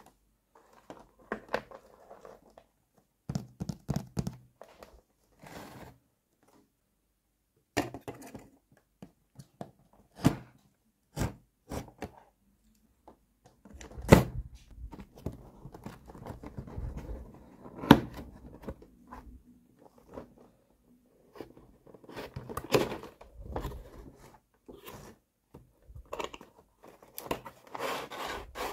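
Cardboard toy box being handled and cut open with a snap-off utility knife: scattered taps and knocks on the box, then, about halfway through, a stretch of scraping as the blade runs through the cardboard, with the flaps pulled open near the end.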